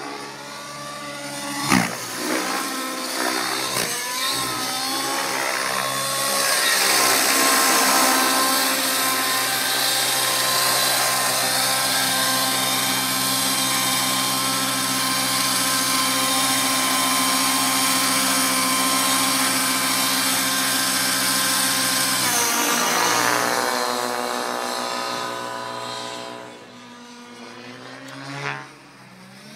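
Align T-REX 700N nitro RC helicopter's YS 120SR two-stroke glow engine with a tuned pipe, running at flight speed with the rotor. Its pitch wavers through manoeuvres in the first few seconds, with a brief loud burst about two seconds in. It then holds a long steady note, drops about 23 seconds in and fades as the helicopter climbs away.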